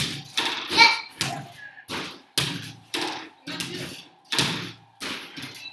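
Small basketballs thudding against the backboard and rim of an indoor arcade basketball hoop game and dropping back onto its net ramp in rapid shooting, about two knocks a second, each with a short ringing tail.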